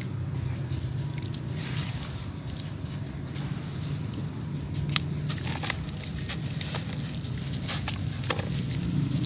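Wet sand-cement lumps squeezed and crumbled by hand into a basin of muddy water: sloshing and splashing with scattered sharp clicks and drips, over a steady low hum. The sand-cement is soaked, so it breaks up wetly rather than crunching.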